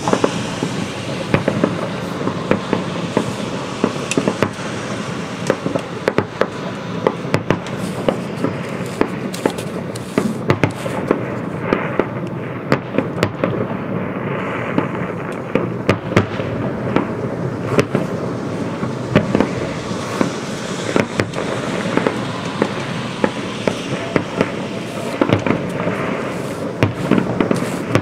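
Aerial firework shells bursting in a continuous barrage: many sharp bangs at irregular intervals, several a second at times, over a steady wash of noise.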